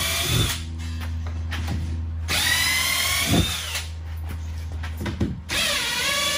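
Power drill-driver backing screws out of a plywood crate, running in short bursts, its motor whine rising in pitch each time it spins up.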